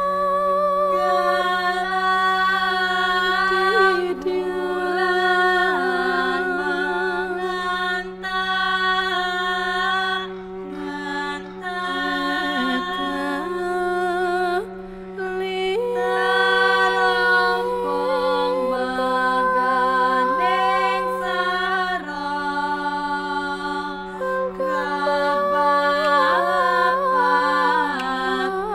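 End-credits music: a slow melody with vibrato over a steady low drone, in a chant-like style.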